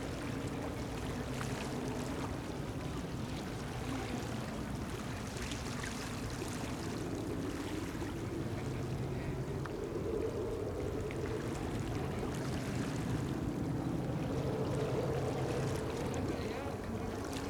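Beechcraft King Air B200's twin PT6A turboprops running on landing approach, a steady drone that grows louder and peaks about fifteen seconds in, over wind noise on the microphone.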